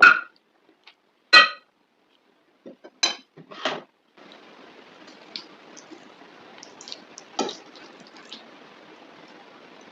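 Metal cutlery clinking against dishware during a meal: two sharp ringing clinks in the first second and a half, then a couple of duller knocks about three seconds in. After that only a few faint small clicks over a low hiss.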